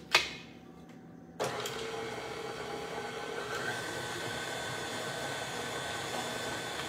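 A tilt-head stand mixer's head clicks down, and about a second later its motor switches on and runs steadily, the paddle beating cream cheese in a glass bowl.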